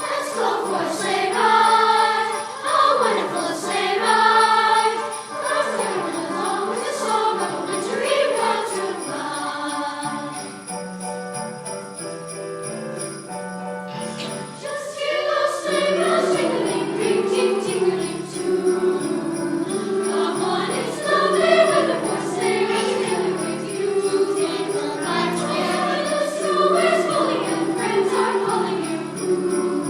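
Youth choir singing a seasonal song over an accompaniment of steady low notes. There is a brief break about fourteen seconds in, after which the singing resumes.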